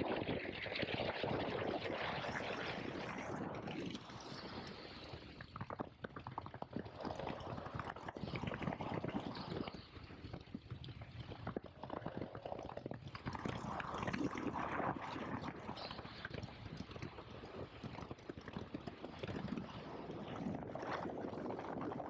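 KTM 1290 Super Adventure S's V-twin engine running while riding, with heavy wind noise on the microphone; the level rises and falls, dipping briefly about 4 and 10 seconds in.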